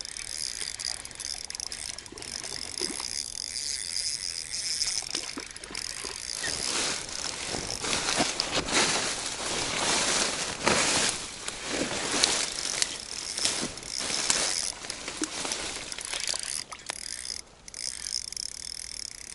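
Ultralight spinning reel being cranked in stretches, its gears giving a rapid fine ticking as a spinner lure is retrieved, the ticking densest through the middle of the stretch.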